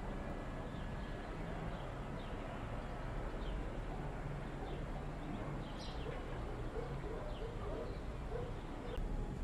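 Outdoor ambience with a steady hiss and faint birds calling: short, high downward chirps scattered through, and a run of short, low notes in the second half.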